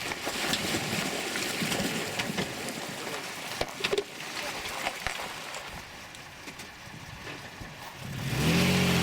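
Vehicle on the move: a rough rattling and crunching noise with scattered knocks, then about eight seconds in an engine gets louder and its revs rise and fall.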